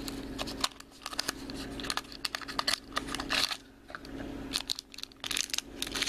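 A small cardboard blind box being handled and opened, then a foil blind bag crinkling and tearing as it is pulled open by hand: irregular crackling and rustling.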